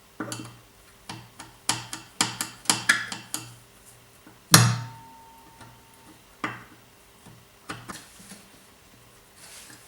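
Metal hand tools clicking and knocking against the metal parts of a washing machine's drum drive, in quick irregular taps. About four and a half seconds in, a single loud metallic clank rings briefly, followed by a few scattered knocks.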